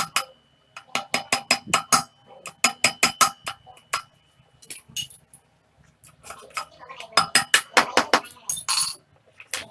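Rapid hammer blows on metal, each with a ringing metallic note, in runs of about five or six a second with short pauses between runs: driving a 6202 front wheel bearing in the wheel hub of a Yamaha R15 v2.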